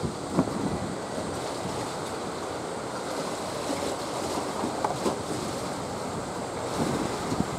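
Wind buffeting the microphone over a steady wash of harbour water, with a few brief thumps.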